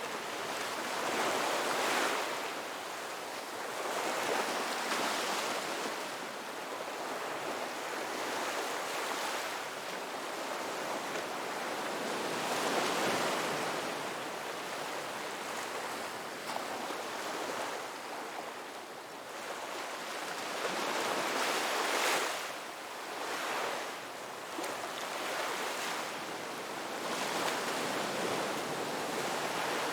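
Ocean waves breaking on a beach, a continuous wash of surf that swells and eases every few seconds.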